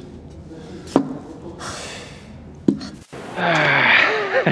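A person's drawn-out, breathy vocal exclamation starting about three and a half seconds in, after a quieter stretch with two sharp clicks.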